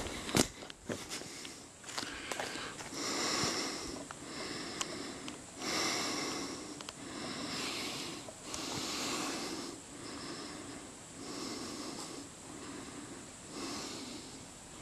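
A person breathing heavily and evenly close to the microphone while walking, about one breath every second and a half. A few sharp snaps or knocks come at the very start.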